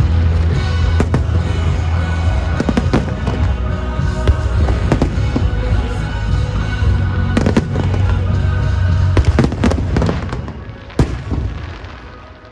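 Fireworks bursting in rapid succession over the show's music, with a heavy low boom throughout. The barrage thins out and fades near the end, broken by one last sharp bang.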